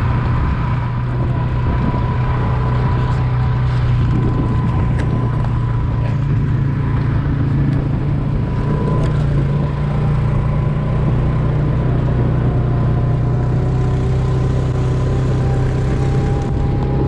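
ATV engine running steadily while the quad is ridden along a gravel trail, with a steady higher whine over the low engine hum.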